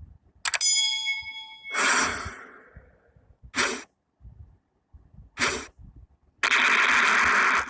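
A string of separate stock editing sound effects: a click and a ringing ding about half a second in, a whoosh, two brief swishes, then a loud burst of hiss lasting about a second near the end.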